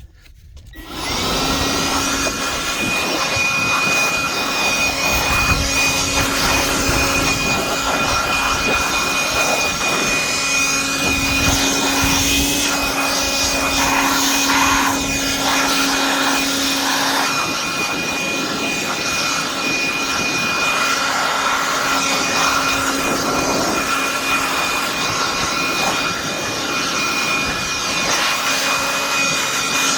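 Makita DUC353 cordless chainsaw running with a steady whine, starting about a second in. Its lower tone drops out briefly a few times, around the middle and again later.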